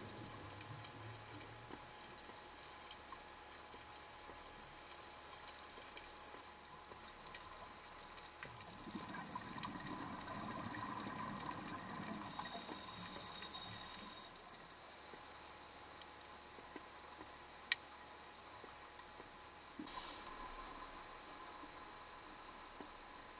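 Underwater sound picked up through a camera housing: a steady water hiss with faint scattered clicks, and scuba exhalation bubbles swelling from about nine to fourteen seconds in, with a single sharp click and a short bubbling burst near the end.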